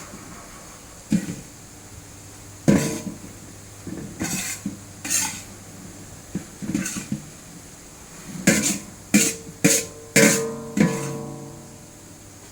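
Metal pots, containers and utensils clanking against each other, with several knocks, a few of them ringing on briefly, the loudest cluster a little after the middle.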